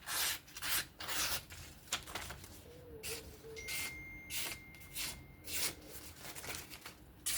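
About a dozen short, irregular rubbing strokes, with a faint steady high tone for about two seconds in the middle.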